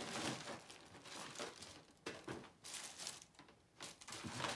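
Rummaging for a piece of wire on a cluttered workbench: irregular crinkling and rustling with small knocks, with a short lull about three and a half seconds in.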